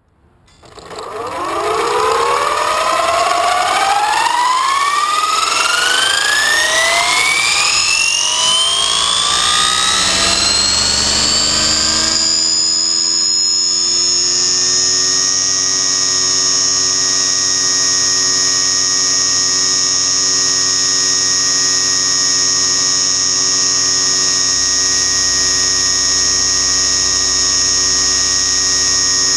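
Radio-controlled helicopter spooling up: a whine rises steadily in pitch over about fifteen seconds, then holds as a steady high whine.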